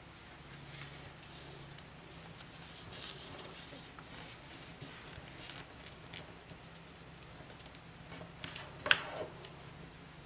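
Origami paper rustling and scraping as hands fold and crease it, in short scattered bursts, with one sharp crackle of the paper about nine seconds in.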